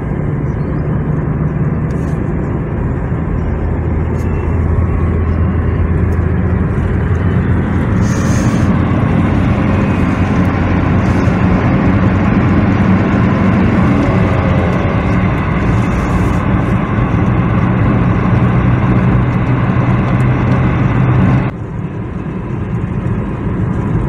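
Steady engine hum and tyre and road noise inside a moving car's cabin, cruising at an even speed. Near the end the noise drops a little and turns duller.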